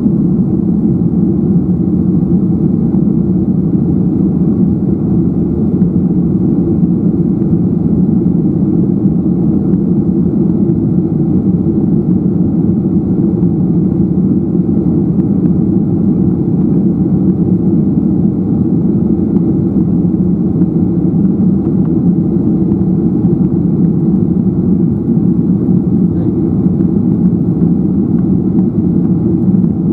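Boeing 737-800 jet engines at takeoff power heard from inside the cabin: a steady, loud, low engine noise that does not change through lift-off and the climb-out.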